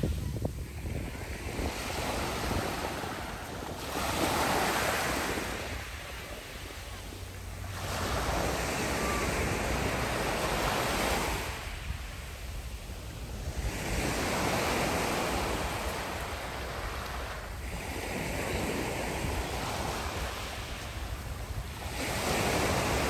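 Small sea waves breaking and washing up and back over a pebble beach, the surf swelling and easing every few seconds, with some wind rumbling on the microphone.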